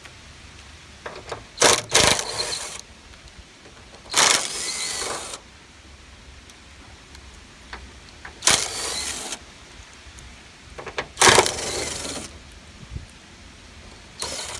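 Cordless impact driver running in four bursts of about a second each, with a short fifth one near the end, backing out the fasteners on a VW bus sliding door's hinge.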